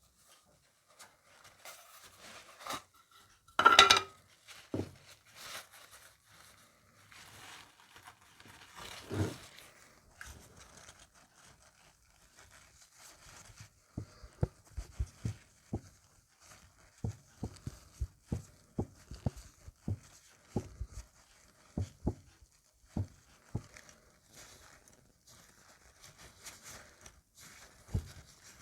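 Small objects being handled on a workbench: a sharp knock about four seconds in, then a run of light, irregular taps and clicks with faint rustling, as a small wooden ring is worked and polished.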